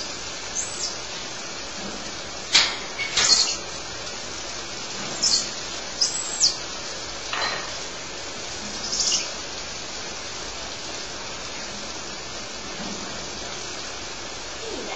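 Squirrel monkeys giving short, high-pitched chirps and peeps, about eight of them scattered over the first nine seconds. The loudest come close together around three seconds in, and one call slides down in pitch. A steady hiss runs underneath.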